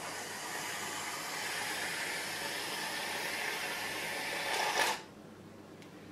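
Aerosol can of ready-made whipped cream spraying: a steady hiss for about five seconds that grows a little louder just before it cuts off.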